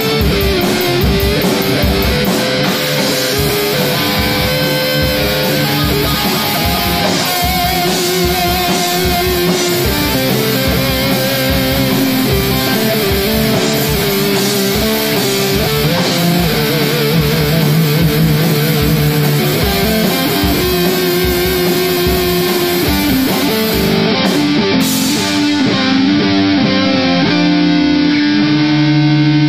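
Heavy rock song with electric guitars over a steady drum beat. Near the end the drums stop and a held guitar chord rings on.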